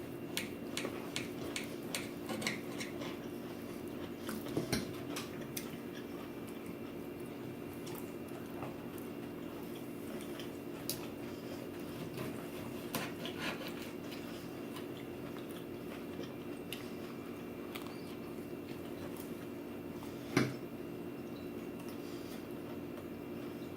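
A person eating: scattered small clicks of cutlery and dishes and chewing, over a steady low hum, with one sharper knock about twenty seconds in.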